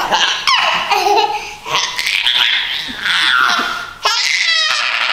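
A toddler girl laughing hard in high-pitched bursts, with a quick run of laughs near the end.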